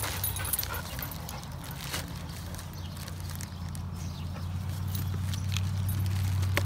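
A dog whining low and continuously, a little louder near the end, with light crinkling from a plastic mailer bag being cut open.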